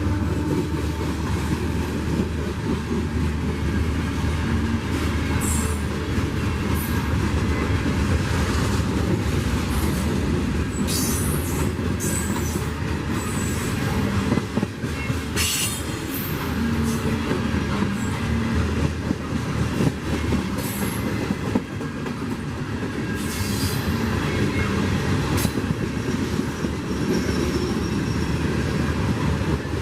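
Freight train rolling steadily past, its railcar wheels rumbling and clacking over the rails. Brief high-pitched wheel squeals break through several times.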